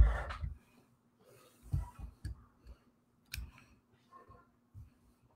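A loud rustling knock that ends about half a second in, then a few scattered soft knocks and clicks with one sharp click a little past the middle, over a faint steady hum.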